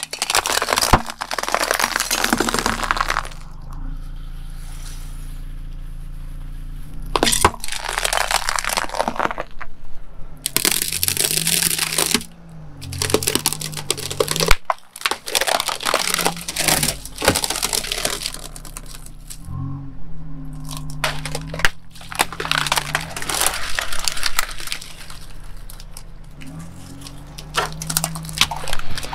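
A car tyre slowly rolling over and crushing objects: repeated runs of loud cracking and crunching, from glass fluorescent tubes inside foam pool noodles breaking, then water balloons bursting and a wicker basket splintering. The car's engine hums low underneath, rising and falling a little in pitch.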